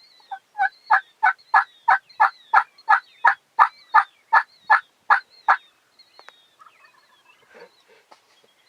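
Turkey yelping: a steady run of about fifteen evenly spaced, raspy notes, about three a second, stopping about five and a half seconds in.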